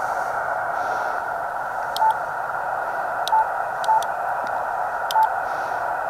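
Yaesu FT-891 transceiver's speaker hissing with receiver static, with five short beeps about a second apart, each with a light button click, as keys are pressed to enter a frequency.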